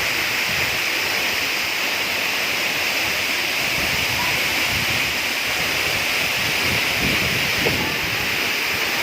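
Waterfall of about ten metres pouring steadily: an even, unbroken rush of falling water.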